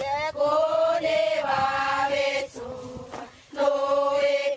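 A group of women chanting together in unison, holding long notes. The chant goes softer a little past halfway, breaks off briefly, then comes back strongly.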